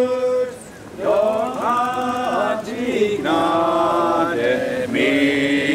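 A small group of voices singing a hymn together without accompaniment, in long held notes with a short breath about a second in.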